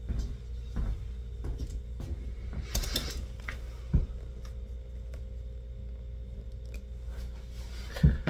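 Scattered light clicks, knocks and rustles of handling, with a brief hissy scrape about three seconds in and a dull thump about four seconds in, over a steady low hum.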